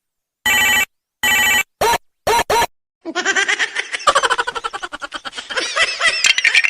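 Two short bursts of a ringing tone, then two quick rising chirps. From about three seconds in comes a dense stretch of rapid, jittery, high-pitched chatter that cuts off just after the end.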